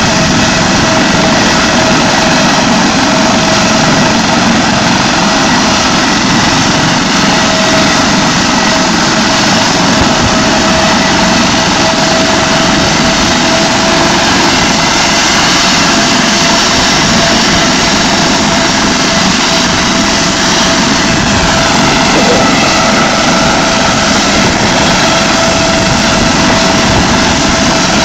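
Air ambulance helicopter running on the ground: a steady turbine whine held on one pitch over a loud, even rush of rotor and engine noise.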